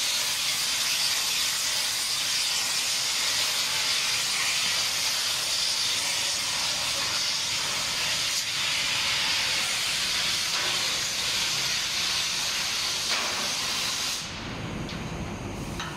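Compressed-air blow lance hissing steadily as it blows residual powder out of a powder-coating cyclone during a colour change; the hiss cuts off about two seconds before the end.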